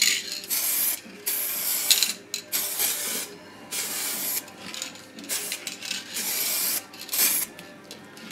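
Aerosol can of adhesion promoter with a fan nozzle spraying in a run of short hissing bursts with brief gaps, laying a heavier coat over a first light one.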